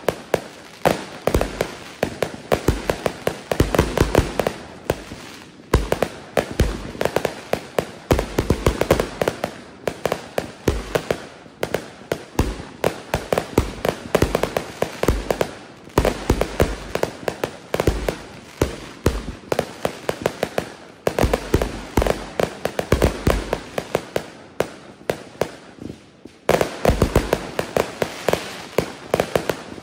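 Consumer firework cake firing shot after shot: sharp pops and dense crackling, in waves every few seconds, each opening with a loud low pop.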